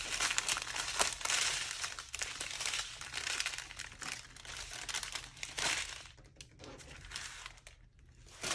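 Plastic packaging crinkling as it is handled, with many small clicks; it thins out and quiets over the last couple of seconds.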